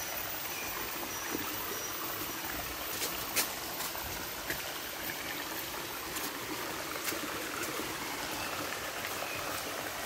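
Shallow forest stream running over rocks and boulders, a steady rushing hiss of water. A few light clicks stand out, two about three seconds in and one about seven seconds in.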